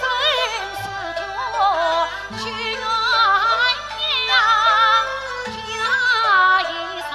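A Yue opera aria sung by a woman, her line wavering with vibrato and sliding between notes, over instrumental accompaniment with held low notes.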